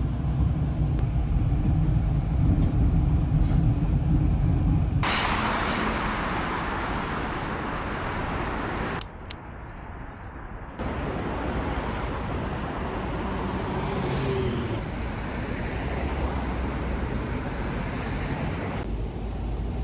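Running noise of a moving vehicle: a steady low rumble that changes suddenly about five seconds in to a brighter rushing noise, with a short dip in level near the middle.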